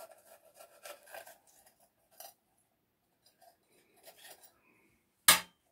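Sparse, soft clicks and rustles of bell peppers being cut and pulled apart with a kitchen knife on a wooden cutting board. One sharp knock about five seconds in is the loudest sound.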